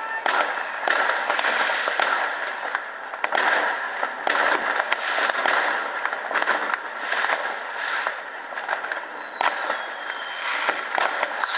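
Many fireworks and firecrackers going off at once: a continuous dense crackle packed with sharp bangs. About eight seconds in, a thin whistle falls in pitch over the crackle.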